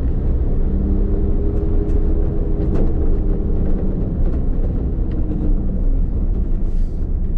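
Diesel recovery truck's engine running as it drives slowly, heard from inside the cab: a steady low rumble with an engine hum that fades out about six seconds in.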